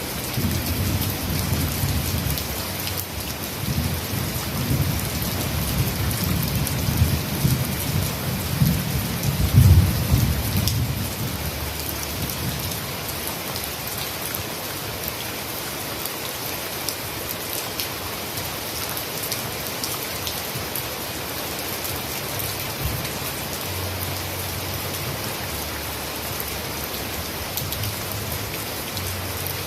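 Heavy rain falling in a steady hiss. A low rolling rumble runs under it for the first ten seconds or so, loudest about ten seconds in, then dies away.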